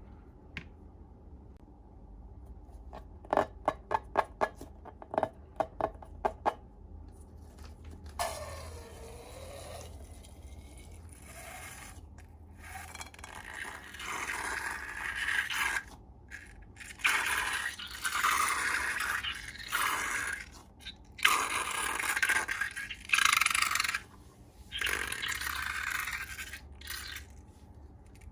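A quick run of about a dozen sharp taps, then repeated bursts of scraping and rubbing from slime being worked and scraped in a container.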